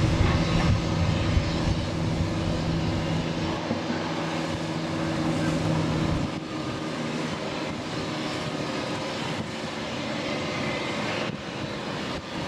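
Motorboat engine running steadily at speed over the rush of water and wind. About six seconds in the low engine hum drops away, leaving mostly the rushing noise.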